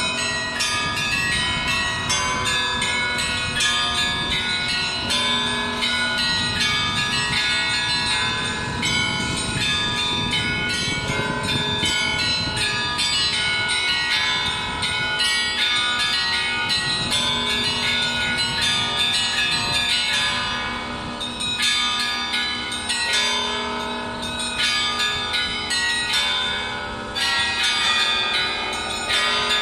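Russian church bells ringing a full peal (zvon): many bells, low and high, struck rapidly and overlapping in a continuous ringing. It eases briefly twice in the second half.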